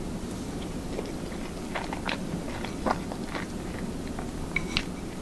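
Close-up chewing and mouth sounds of someone eating soft food (hamburger steak with rice and gravy), with small wet clicks and smacks scattered through. The sharpest come about three seconds in and near the end, over a steady low hum.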